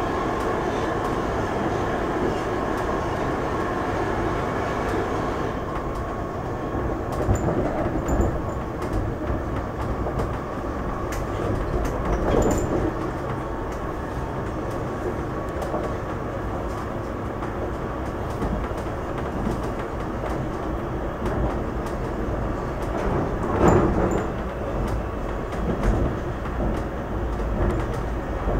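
Stockholm metro train running, heard from inside the passenger car: a steady rumble of wheels on the rails. A whine in the running noise fades about five seconds in, and there are a few louder clatters.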